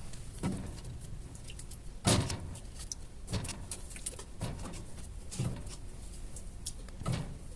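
Goods being set onto the shelves of a store fridge while it is restocked: a series of knocks about a second apart, the loudest about two seconds in, with light clinks and ticks between them.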